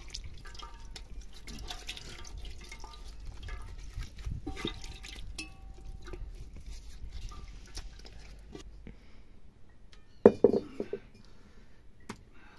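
Water splashing and dripping as raw goat mutton pieces are rubbed and washed by hand in a metal basin, with small clinks against the basin. About ten seconds in comes a short, much louder knock.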